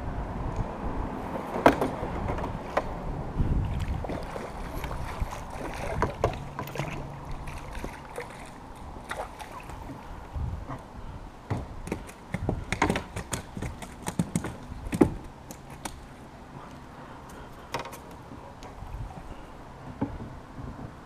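A hooked crappie splashing at the surface and then being netted into a small boat. Irregular knocks and clatter of the net, rod and gear against the boat, thickest in the middle.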